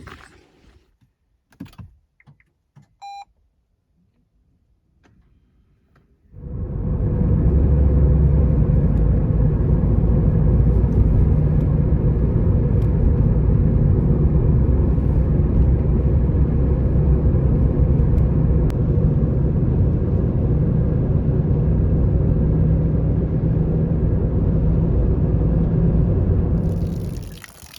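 A few soft clicks and a short beep, then an engine or motor starts abruptly about six seconds in. It runs loud and steady for about twenty seconds, then stops near the end.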